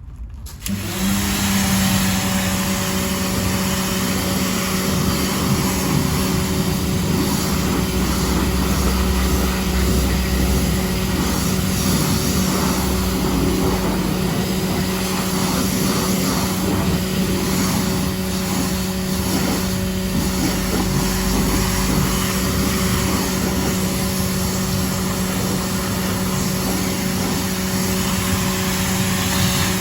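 AVA P60 electric pressure washer starting up about a second in and then running steadily, its pump motor humming under the hiss of the water jet from the stubby gun.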